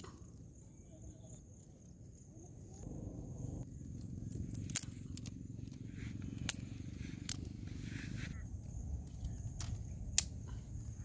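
Small fire of dry twig kindling catching and crackling, with a handful of sharp, separate snaps, the loudest near the end, over a low steady noise.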